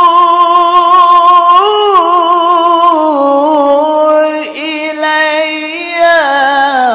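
A man's melodic Qur'an recitation (qiro'ah, tilawah style), drawing out long held notes with wavering ornamental turns. The pitch steps down about three seconds in and falls again near the end.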